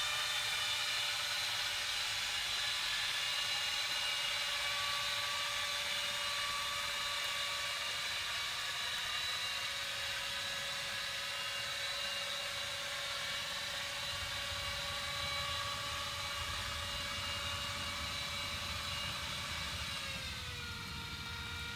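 Engine and propeller of a motoring sailboat heard underwater through a hydrophone: a steady whine of several held tones over a hiss, slowly fading, with the tones dropping a little in pitch near the end.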